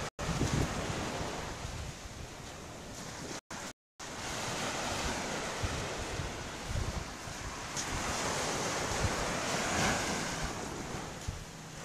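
Wind buffeting the phone's microphone in gusty rumbles over a steady hiss of surf on a beach. The audio drops out completely twice, just after the start and for about half a second some three and a half seconds in.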